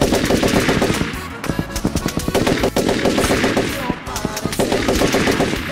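Rapid gunfire, many shots fired in quick bursts, over music.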